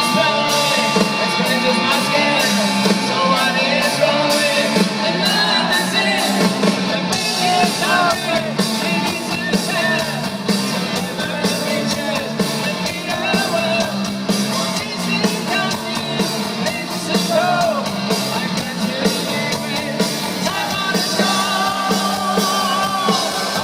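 Rock music: a band playing with a lead singer, the vocals at times yelled.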